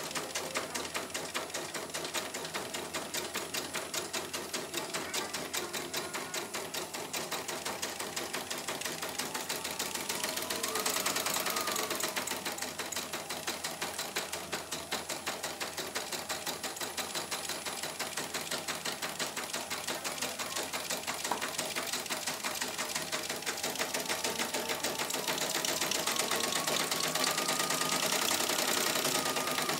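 CNY E900 computerized embroidery machine running a test stitch-out with its covers off, the needle bar pounding in a fast, even rhythm as the hoop steps the design along. A faint rising and falling whine comes in about a third of the way through and again near the end. The mechanism has just been oiled, and this is the test run before the machine is closed up after its repair.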